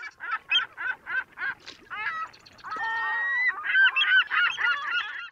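Geese honking: a run of short calls about three a second, one longer held call about three seconds in, then quicker overlapping honks that cut off suddenly.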